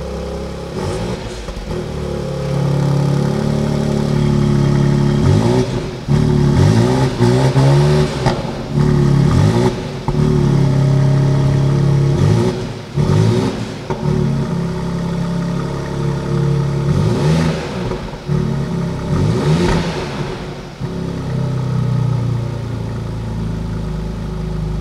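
BMW X4 M Competition's twin-turbo inline-six running at a standstill and being revved through its flapped exhaust. It is revved again and again, each rev climbing in pitch and dropping back, in a quick series from about five seconds in to about twenty, between steadier stretches.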